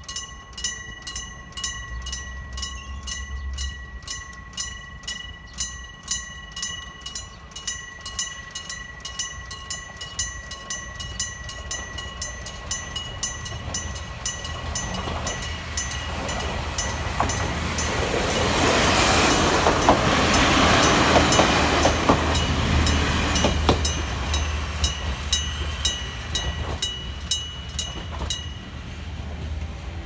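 Electric-bell level crossing signal ringing rapidly, about three strikes a second, while a diesel railcar approaches, passes loudest in the middle with wheels clicking over the rail joints, and moves away. The bell stops near the end.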